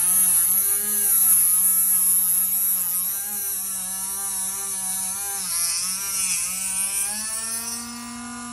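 Small electric motor of a cutting tool running as it is guided through a cut in balsa, its hum wavering up and down in pitch. About seven seconds in the pitch steadies and rises slightly.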